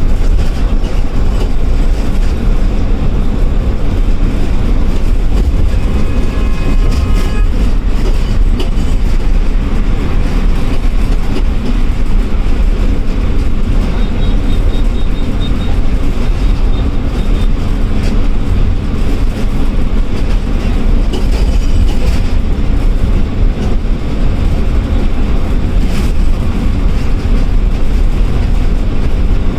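Loud, steady drone of a KSRTC ordinary bus's diesel engine and road noise, heard from inside the front cabin beside the driver while the bus cruises along a highway.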